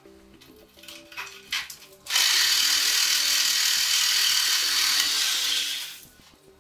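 A handheld power tool starts about two seconds in and runs steadily at a high pitch for about four seconds, cutting through a nail that fastens an old door frame into the wall, then stops. A few light knocks come before it starts.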